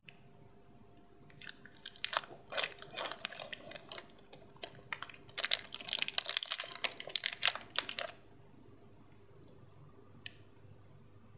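Plastic wrapper of a Snickers bar crinkling as it is pulled open by hand: a dense crackle of short clicks for about six seconds. A single short click follows near the end.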